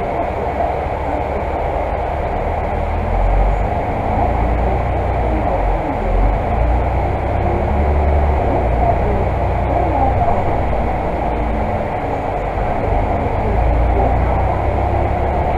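Volvo Super Olympian 12 m double-decker bus's diesel engine and running gear, heard from inside the bus as it pulls away and drives along the road: a steady deep rumble of engine and drivetrain with road noise, growing a little louder about three seconds in.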